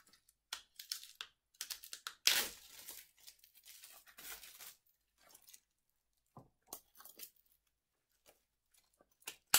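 Clear plastic wrapping being picked at and peeled off a thin card, crinkling, with a louder tear about two seconds in. Then a few faint ticks, and a sharp click near the end.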